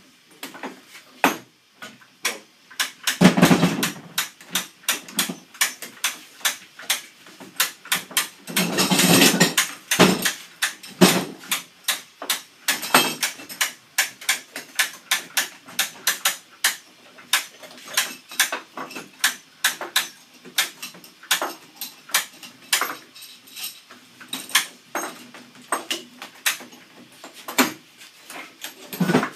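Steam-bending form being clamped up: a steady run of sharp knocks and metal clicks, about two a second, from hammer blows and steel G-clamps being set and tightened on the bent wood. Two louder, longer noisy bursts come about three and nine seconds in.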